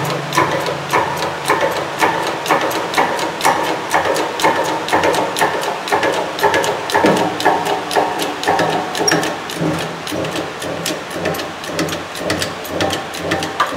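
Hand-pumped hydraulic bottle jack clicking and knocking in a steady run, several clicks a second, as it presses a commercial washer's tub shaft out through its old bearings.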